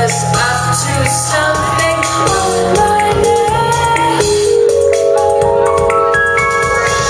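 Live band music with singing. About halfway through, long held notes come in one after another and build into a sustained chord.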